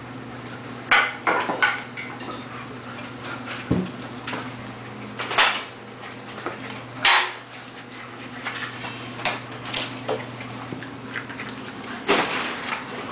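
Two dogs play-fighting and scuffling on a tile floor, with sharp knocks and clatters scattered through, the loudest near the start, around the middle and near the end, over a steady low hum.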